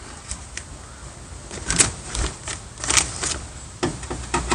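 Irregular clicks and short scrapes of a screwdriver working at the plastic inner panel of a car door, loosening screws and prying at the trim.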